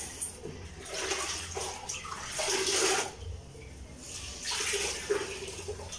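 Water splashing and running into a plastic bucket as a floor cloth is dipped and wrung out over it, in three rushes, the loudest about two and a half seconds in.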